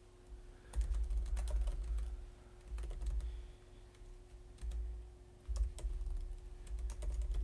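Typing on a computer keyboard, keys clicking in several short bursts with brief pauses between them.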